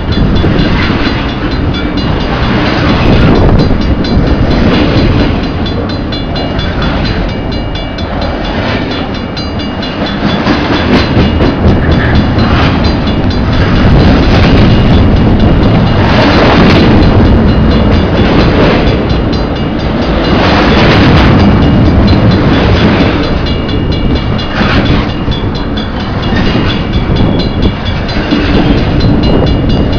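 A CN train's cars rolling past close by: a loud, continuous rumble with wheels clattering over the rail joints every second or two.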